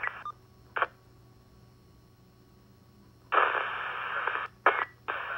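Police scanner radio between transmissions, heard through a Uniden SDS200's speaker: a short squelch burst just under a second in, then near quiet. From about three seconds in comes a hissing open-carrier static, broken by a few brief dropouts near the end.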